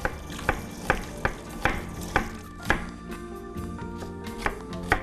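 Kitchen knife slicing an onion on a cutting board. The cuts come in a steady rhythm of about two to three a second, each a sharp tap of the blade striking the board.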